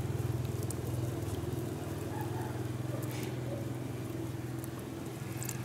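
An engine running steadily at idle, a low even hum, with a few faint ticks.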